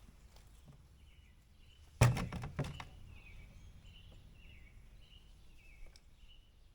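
A brief loud clatter of several sharp knocks about two seconds in, over faint bird chirps.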